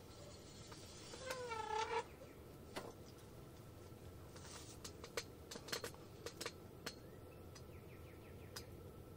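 A single soft, wavering turkey call a little under a second long, about a second in. After it come scattered faint sharp clicks.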